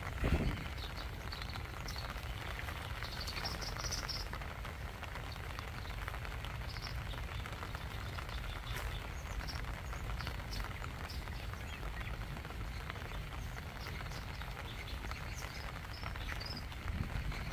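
Steady rain falling on a lake surface, with a constant low rumble underneath and scattered faint high chirps. A brief thump sounds near the start.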